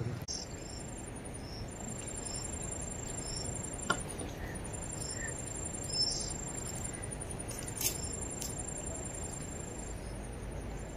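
Insects trilling steadily at a high pitch, with short bird chirps repeating less than a second apart over a low background rumble, and a couple of brief clicks.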